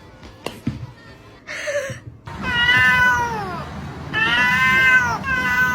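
A cat meowing: three long, drawn-out meows, each falling in pitch at its end, beginning a bit over two seconds in.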